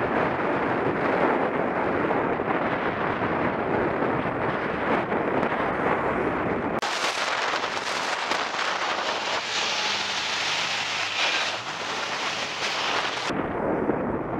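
Wind buffeting the microphone of a cyclist's camera while riding along the road, a steady rumbling rush. About seven seconds in the sound switches abruptly to a thinner, higher hiss for about six seconds, then the rumble returns just as suddenly.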